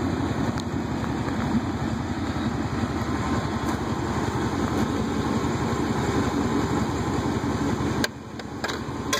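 Chevy Silverado pickup's engine idling steadily. About eight seconds in the engine sound drops away sharply and a few light clicks follow.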